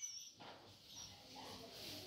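Near silence in a lull between barks, with only a few faint high squeaks.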